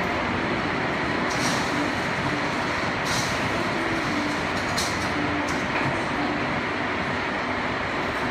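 Heavy rain falling steadily in a dense hiss, with a few brief sharper spatters.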